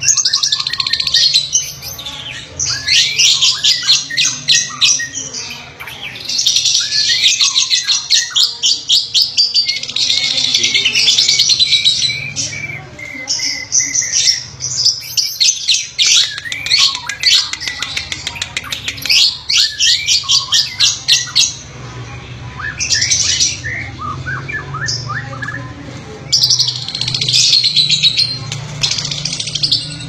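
Lovebirds chattering: long runs of rapid, high-pitched chirps and squawks in several bursts, with short pauses between them.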